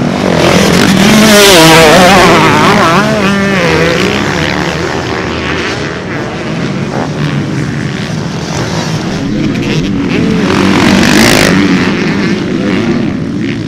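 Motocross dirt bikes racing past on a dirt track, their engines revving up and down. The loudest close passes come about two seconds in and again about eleven seconds in.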